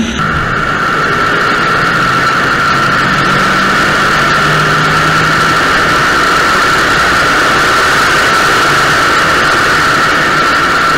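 Steady rush of wind and road noise on a car-mounted camera at high speed, with a faint engine drone underneath that fades about halfway through.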